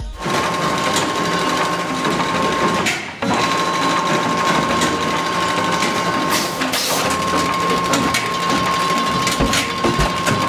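STEP SB-25 automated stacker and bander running: steady mechanical clatter and whirring over a high, steady whine. The sound dips briefly about three seconds in, and the whine breaks off for a moment near seven seconds.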